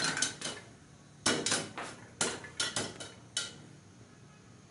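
Popcorn kernels popping inside a closed aluminium pressure cooker, each pop a sharp tap against the metal. The pops come irregularly, thin out and stop about three and a half seconds in: popping is nearly over, the sign that the popcorn is done.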